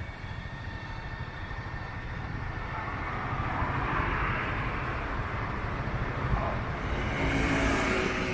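A vehicle passing on a city street or railway: a steady low rumble, with a rushing hiss that swells and fades about two to five seconds in and rises again near the end.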